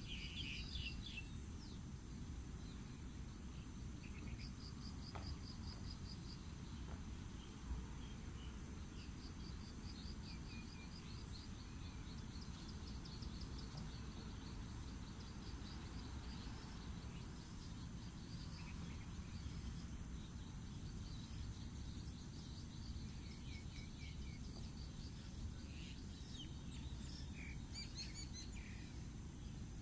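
Outdoor ambience: a steady low rumble with birds chirping off and on, including a few quick trilled runs of notes in the first half.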